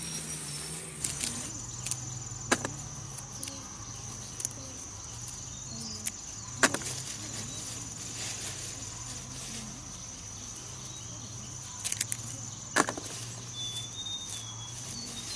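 Steady, high-pitched chirring of insects such as crickets in a field, with a few sharp snaps and clicks as peanut pods are pulled from their plants by hand.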